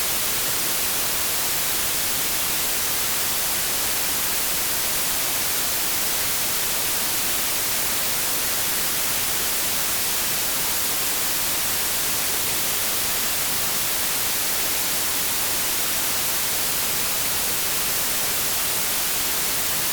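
Steady synthetic white-type noise, an even hiss weighted toward the treble: brighter and stronger in the highs than in the lows, unchanging throughout.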